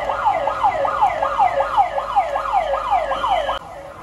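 Fire-drill evacuation alarm siren sounding: a rapid run of repeating sweeps, each falling in pitch, about two and a half a second. It drops suddenly to a much fainter level near the end.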